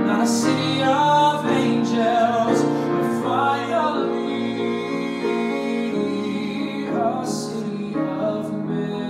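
Male singer's voice through a microphone, singing a slow ballad with long held notes over piano accompaniment.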